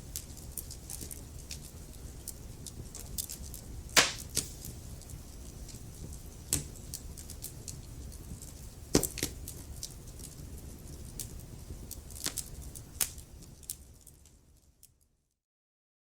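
Wood fire burning with a low rumble of flames and irregular crackles and pops, two of them louder, about four and nine seconds in. Near the end the fire sound fades out to complete silence.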